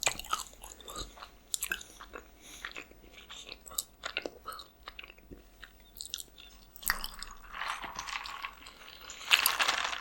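Close-miked eating: chewing and biting with many small wet mouth clicks, growing denser and louder near the end.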